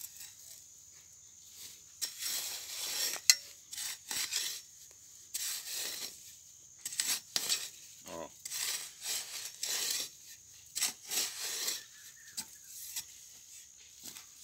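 A long steel digging bar scraping, crunching and clinking as it is driven and levered into hard, dry soil to loosen a cassava root. The strokes are irregular, with a few sharp clinks; the loudest comes about three seconds in.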